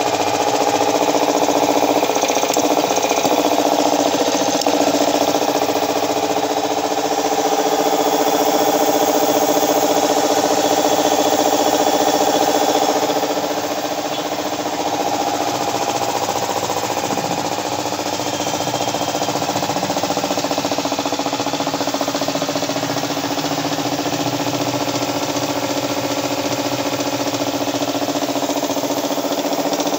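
Speed Tech 1 HP belt-driven twin-cylinder piston air compressor running steadily, its electric motor driving the pump with an even mechanical hum and knock; a little quieter from about halfway through.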